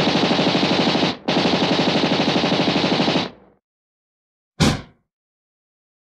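Machine gun firing a long burst of rapid automatic fire, about ten shots a second, with a brief break about a second in, stopping after about three seconds and dying away. A single loud shot follows about a second later.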